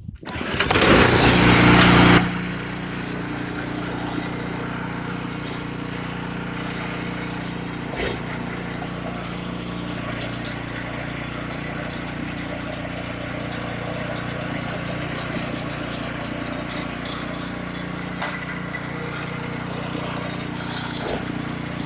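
Gasoline snowblower engine catching on a warm start, running loud for about two seconds, then settling into a steady run.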